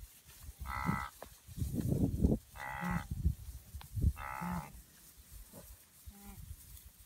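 Blue wildebeest calling: three short, moo-like grunts about a second and a half apart, then a fainter fourth near the end, with an irregular low rumble between them.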